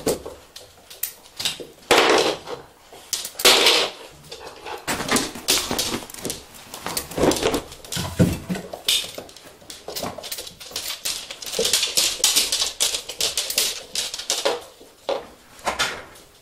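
Vizsla dogs scuffling in play over a plush toy on a laminate floor: a busy, irregular clatter of claws clicking and scrabbling on the hard floor, with bumps and a few louder scuffles.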